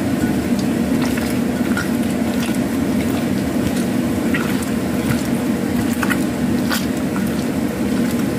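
Wet squishing and squelching of hands kneading raw chicken wings with lime juice and seasoning in a bowl, as scattered short soft squelches. A steady low hum runs underneath.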